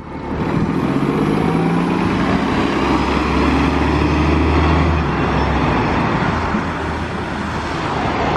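A 2012 Gillig Low Floor hybrid bus, with a Cummins ISL9 diesel and Voith DIWAhybrid drive, pulling away from a stop and accelerating. An engine note rises over the first couple of seconds and settles into a steady low drone, which eases off after about five seconds as the bus moves away.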